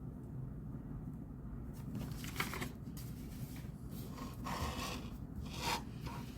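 Paper rustling and scraping at a study desk, several short bursts over about four seconds, over a steady low background hum.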